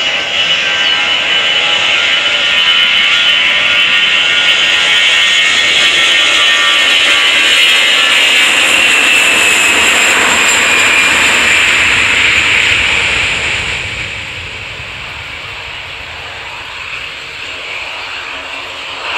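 Airbus A320-214's CFM56 turbofan engines at takeoff power as the jet rolls down the runway past the listener: a loud jet roar with a high whine that falls in pitch as it goes by. About 13 seconds in, the noise fades to a quieter, steady rumble.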